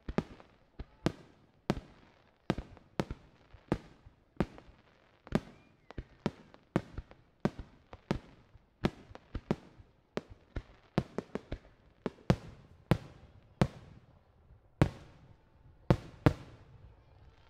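Aerial firework shells bursting in quick succession, about two bangs a second, each with an echoing tail; the loudest bangs come near the end.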